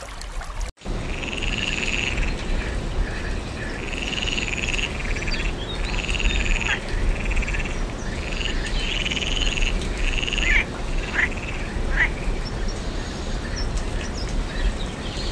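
Tree frog calling: a string of rapid, rattling croaks, each under a second long, repeated about ten times and thinning out near the end.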